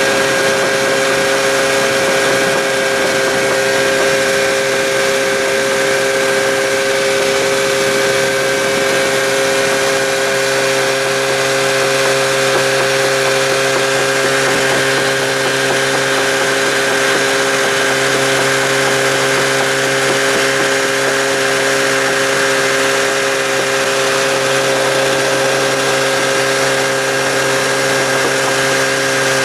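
An engine running steadily at a constant speed, a loud, unchanging drone with no revving or change in pitch.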